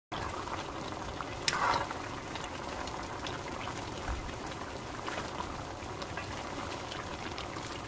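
Spicy braised chicken stew (dakbokkeumtang) simmering in a pan, a steady bubbling with faint scattered pops as it is stirred. A brief louder noise about a second and a half in.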